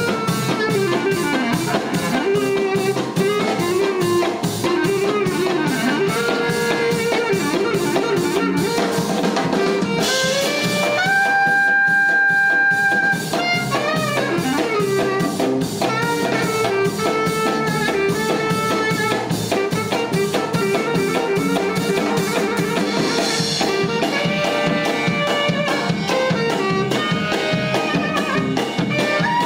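Background music: an upbeat instrumental with a steady drum beat and a moving melody line that holds one long note about eleven seconds in.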